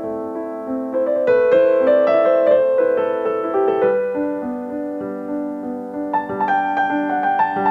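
Background music played on piano or electric keyboard: sustained chords with a melody moving over them.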